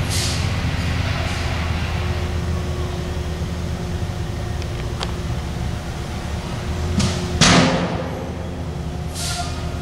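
A steady low engine hum with three short whooshes sweeping over it, the loudest about seven seconds in.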